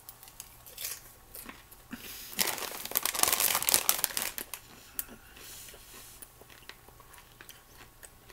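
Popcorn bag crinkling as it is handled, loudest for about two seconds starting about two seconds in, with fainter rustling and small crunches of popcorn being chewed around it.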